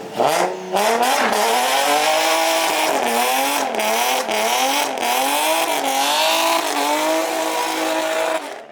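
Nissan 350Z's V6 held at high revs in a burnout, its pitch wavering up and down, with the rear tyres squealing and spinning together on the welded differential. It cuts off near the end.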